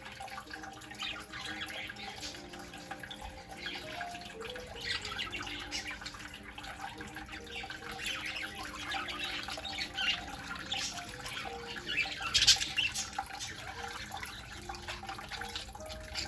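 Water in a small bird-bath fountain trickling and splashing irregularly as budgies bathe in it, with sharper splashes now and then, the loudest about twelve seconds in.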